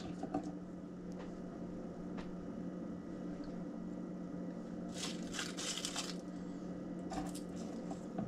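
Papery garlic skins crackling and crinkling as cloves are peeled by hand, in two short spells a little past halfway through, with a few faint taps before.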